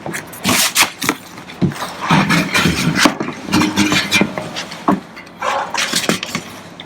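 Irregular knocks and scrapes, a dozen or so short hits with rustling between them.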